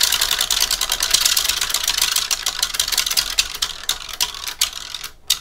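A spinning prize wheel's flexible pointer clicking against the pegs around its rim: rapid ticking that slows as the wheel loses speed and stops about five seconds in.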